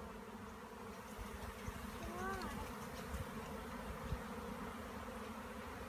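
A swarm of honeybees buzzing steadily, many bees in the air around the bush as the swarm is disturbed and taken.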